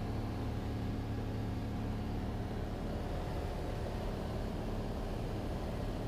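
Cessna 182's piston engine and propeller droning steadily in flight, heard inside the cabin.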